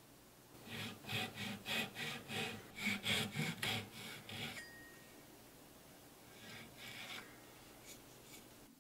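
Fine-toothed hand saw cutting through a small block of wood, with quick, regular rasping strokes about three a second for some four seconds that then stop.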